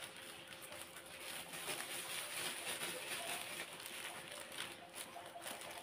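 Thin clear plastic bags rustling and crinkling as hands twist and tie a filled bag of vegetables shut, busiest in the middle.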